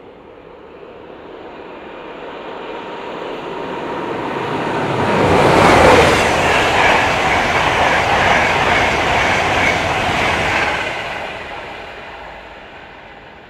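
An InterCity 225 electric express, a Class 91 locomotive with Mark 4 coaches, passing at speed. The clatter and rush of wheels on rail builds, is loudest for about six seconds as the coaches go by close, then fades as the train draws away.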